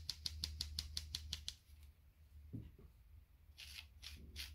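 Flour and spices being sifted through a fine-mesh sieve into a glass bowl: a rapid rhythmic rasping, about six strokes a second. It stops briefly after a second and a half and starts again near the end.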